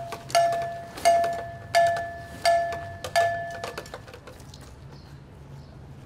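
A metal bell struck in a steady slow beat, about one strike every 0.7 seconds, each strike ringing on at one clear pitch with a higher overtone. Five strikes, then it stops about four seconds in.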